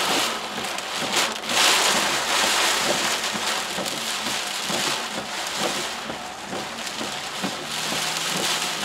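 Torrential rain hitting a car's windshield and roof, heard from inside the moving car as a dense, steady hiss that swells briefly about a second in.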